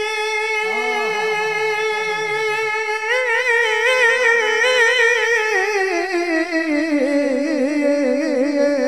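A naat singer holds one long wordless note, level at first. About three seconds in it starts to waver, and from about five seconds it slides down to a lower note that keeps wavering.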